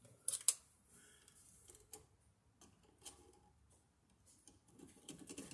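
A screwdriver and wire clicking against a wall outlet's terminal screws: two sharp clicks near the start, then a few faint scattered ticks.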